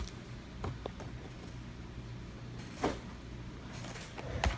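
Handling noises as the contents of a Yu-Gi-Oh! mystery box are moved about: a few soft knocks, a brief rustle about three seconds in, and a sharper knock near the end, over a steady low hum.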